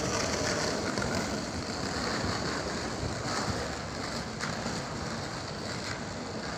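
Skateboard wheels rolling over paving, a steady rumble with a couple of faint clicks.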